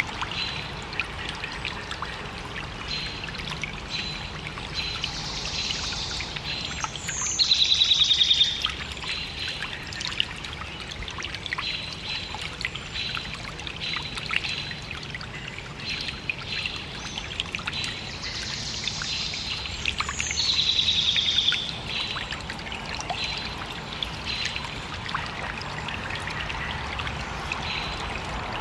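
Small woodland stream trickling steadily over stones, with a songbird singing two phrases, one about five seconds in and one near twenty seconds in, each ending in a falling trill; these are the loudest moments. Short high bird notes repeat through the rest.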